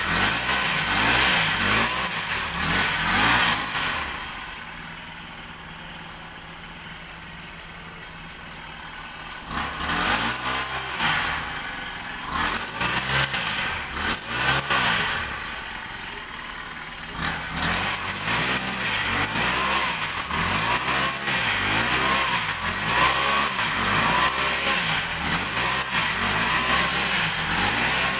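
Petrol brush cutter cutting grass, its engine revving up and falling back again and again as the blade swings through the weeds. About four seconds in it drops back to a lower, quieter run for several seconds, then picks up again, the revs rising and falling about once a second.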